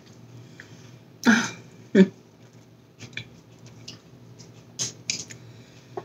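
A person eating a bacon burger: quiet chewing with small wet mouth clicks, broken by two short throat noises about a second and two seconds in, and two smaller ones near the end.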